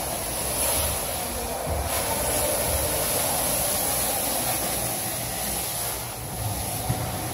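Rotovac Bonzer carpet-extraction wand working over carpet: a steady rushing hiss of vacuum suction drawing air and water up through the wand head and hose, over a low rumble.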